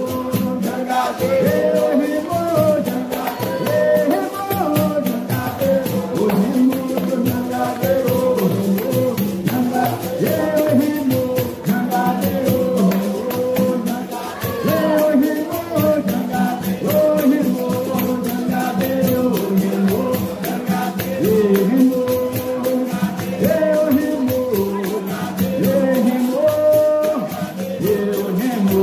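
Capoeira music from a medley of capoeira songs: a voice singing over rhythmic percussion.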